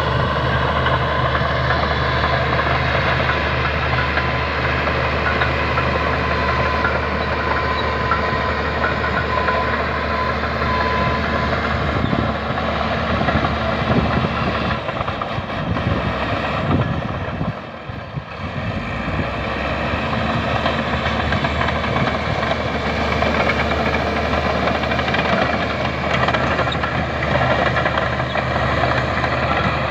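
Heavy-equipment diesel engine running steadily under load. It dips briefly a little past halfway, then picks up again.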